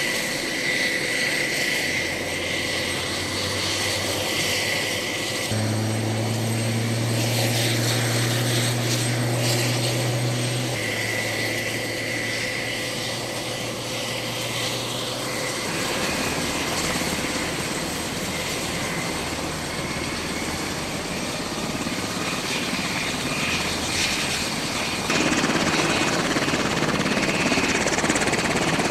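HH-60 Pave Hawk rescue helicopters running on the ground, rotors turning: a steady high turbine whine over a low rotor hum, the mix shifting abruptly a few times.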